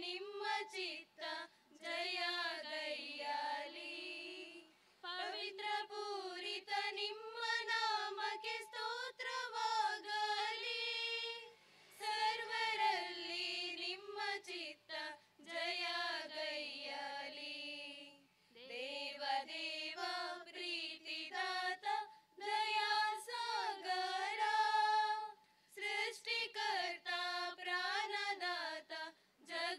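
A prayer song sung unaccompanied by high female voices in a single melodic line, in phrases broken by short pauses.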